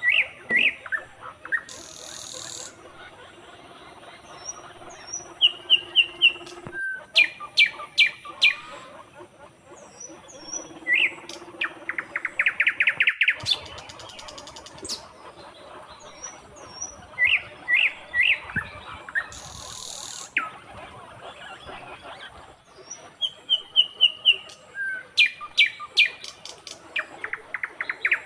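Birds chirping: short high chirps, quick runs of chirps and fast trills. The same run of calls comes round again after about 18 seconds.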